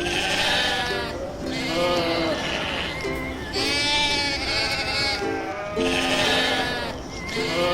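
Several long, wavering bleats in quick succession, from sheep or goats, over background music with steady held notes.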